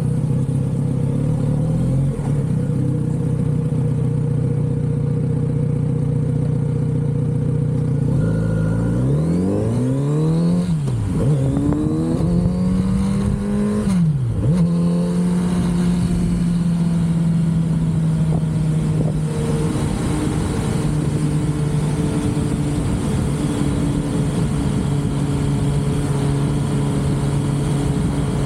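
Kawasaki Z900RS inline-four engine on its stock exhaust, running steadily while riding. About eight seconds in it revs up under acceleration, with a shift near eleven seconds and another near fourteen, then settles into a steady cruise.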